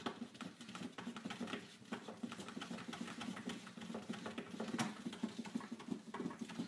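A cat pawing again and again at a cat food container, a run of quick, irregular light taps and scratches.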